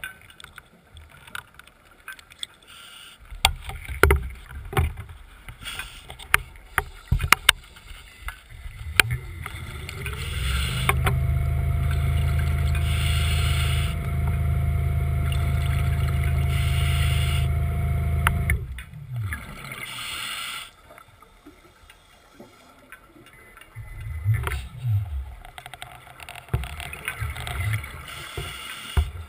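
Seacraft diver propulsion vehicle's electric motor heard underwater: about nine seconds in its whine rises in pitch, holds steady with a low hum for about eight seconds, then winds down. Before and after, the diver's exhaled bubbles rush at intervals, with scattered clicks.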